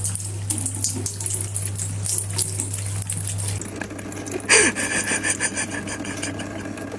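Running water, splashing unevenly, growing louder and fuller about four and a half seconds in.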